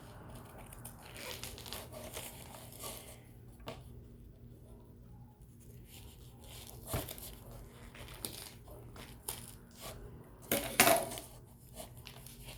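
Packing tape being picked at and peeled off a taped box: scattered scratching, crinkling and small clicks, with a louder rip about eleven seconds in.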